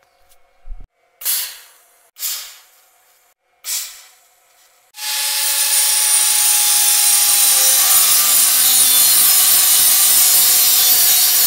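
Angle grinder on the steel tube frame: three short bursts that each die away quickly, then from about five seconds in a loud, continuous grind into the steel.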